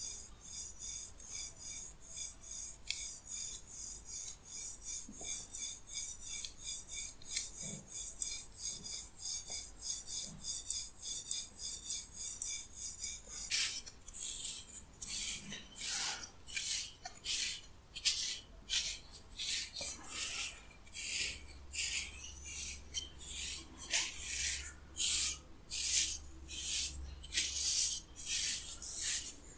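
A wire scalp massager scratches quickly and lightly through hair. About halfway through, a wooden comb takes over, drawn through oiled hair in a steady run of louder swishing strokes.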